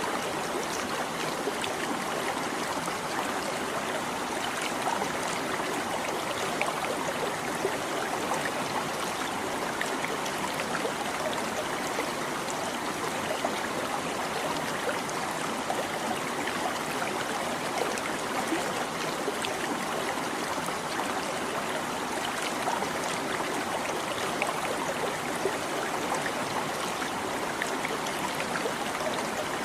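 A small stream babbling steadily over stones, an even rush of water with fine trickling and splashing detail.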